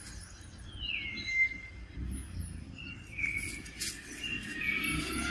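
Birds calling: a few clear whistled notes that slide down in pitch, one after another about a second apart, with short high chirps between them, over a low steady rumble.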